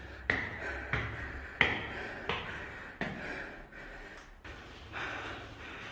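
Footsteps climbing hard stone stairs, about one step every two-thirds of a second, with hard breathing between them.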